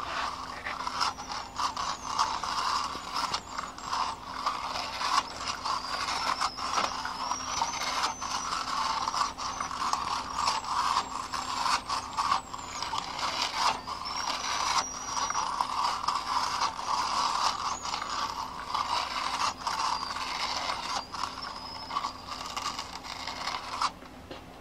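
2-inch quad videotape being wound slowly by hand from one reel to another, giving continuous crackling and creaking with many small clicks and thin, high squeaks. The tape is water-damaged and moldy. The sound eases off near the end.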